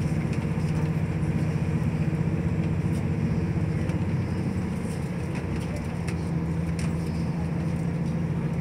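Steady running noise inside a moving diesel passenger train: a constant low engine hum over the rush and rumble of wheels on the track.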